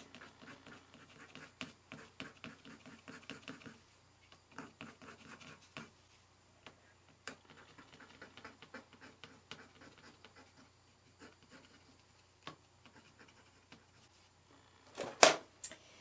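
Colored pencil scratching faintly across textured watercolor paper in short, repeated hatching strokes. A couple of sharper, louder clicks come near the end.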